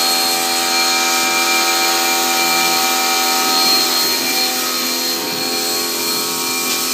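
Electric pressure washer running, its motor holding a steady pitched hum under the hiss of the water jet spraying onto a car's carpet.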